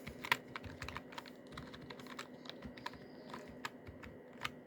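Langtu membrane gaming keyboard being typed on: irregular soft key presses, a few a second, with a sharper clack about a third of a second in and again near the end. The keys are lubed with baby oil and padded with tissue paper, which keeps the board quiet.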